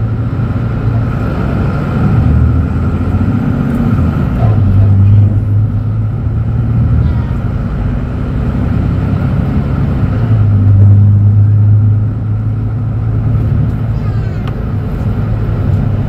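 The 7.7-litre inline-six OM936LA Bluetec 6 diesel of a Mercedes-Benz O500U city bus idling while the bus stands still, a steady low drone with a faint whine above it. The drone swells louder twice, about five seconds in and again about eleven seconds in.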